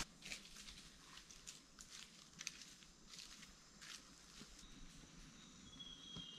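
Near silence with faint, scattered crackles of footsteps in dry leaf litter, and a faint high whistle near the end.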